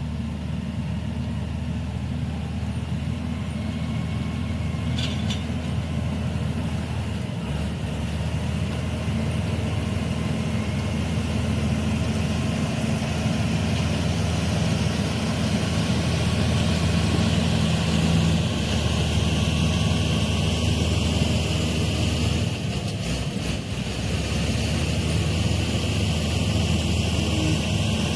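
Komatsu D85E-SS crawler bulldozer's diesel engine running steadily and working while the machine pushes dirt.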